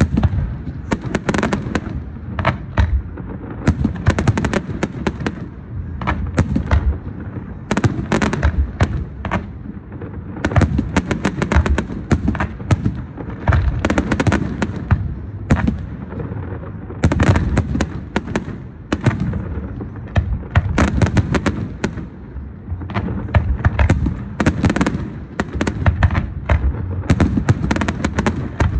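Fireworks going off in a dense, continuous barrage: overlapping booms and sharp crackling bangs, several a second, with no pause.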